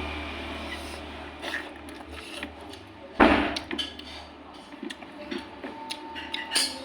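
Small clicks and knocks of dishes during a meal, with one loud knock, like a dish or glass being set down on the table, a little over three seconds in.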